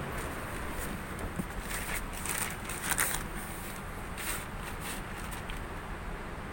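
A person climbing into a car's back seat and settling in: clothing and seat fabric rustling and shuffling, with a run of short scuffs in the middle, the loudest about three seconds in, over a steady low hum.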